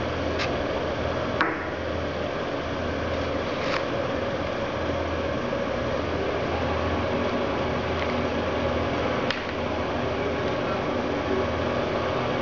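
A steady background hiss and hum, with four light clicks as the small metal and plastic parts of an e-cigarette (battery, clearomizer, mouthpiece) are handled and set down on the table.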